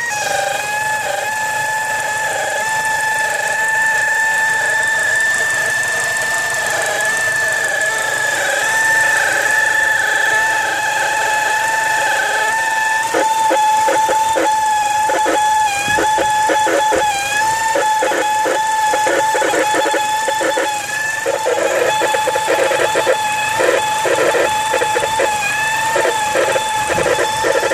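A 2004 Mazda 6 running with a steady high-pitched whine, a second tone above it, dipping slightly in pitch now and then: the whining noise the owner is asking for help with. From about halfway a rapid ticking clatter joins in, strongest near the end.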